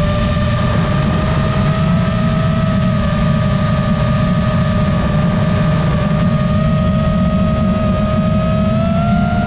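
Motors and propellers of a 7-inch FPV quadcopter heard from its onboard camera: a steady motor whine over a heavy low rushing rumble, the pitch rising a little near the end.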